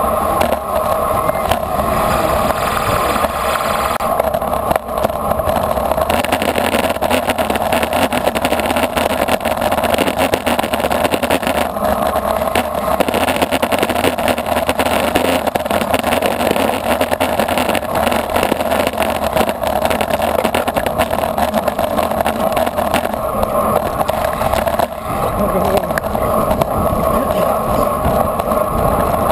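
Wind rushing over a bicycle-mounted action camera's microphone, along with tyre and road noise, while riding at race speed. In the middle it turns rougher and more rattly, over a brick-paved stretch of road.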